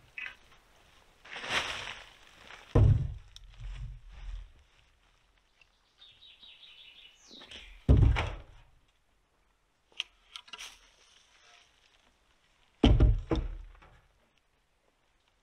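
Wooden poles being laid onto a dugout roof: three heavy, deep thuds about five seconds apart, with lighter knocks between.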